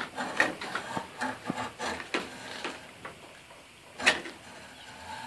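Hacksaw cutting a slot into the end of a small oak branch: rasping back-and-forth strokes about two or three a second that ease off after about three seconds, with one sharp knock about four seconds in.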